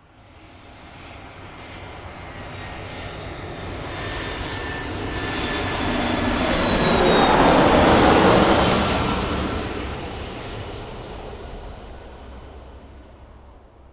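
Airplane flying overhead: its engine noise grows steadily louder, peaks about eight seconds in, then fades away. High whining tones slide slightly down in pitch as it passes.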